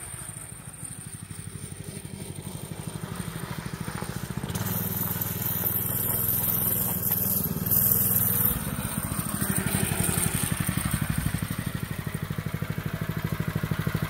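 TrailMaster Storm 200 mini bike's 196cc single-cylinder engine running as the bike rides toward the listener, growing louder to its loudest about eight seconds in, then running on.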